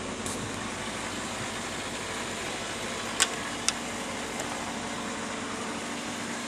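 2012 Kia Rio's engine idling steadily, running again after a replacement ECU cured its crank-no-start fault. The mechanic puts the engine's noisiness down to a timing problem. Two sharp clicks come a little over three seconds in.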